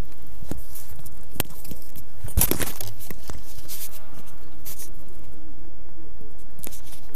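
Handling noise picked up by the drone's own GoPro: scattered clicks and knocks on the DJI Phantom 2's plastic shell, with a short burst of rustling about two and a half seconds in.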